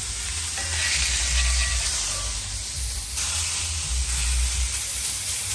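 Meat sizzling on a charcoal barbecue grill: a steady hiss, with a low rumble underneath.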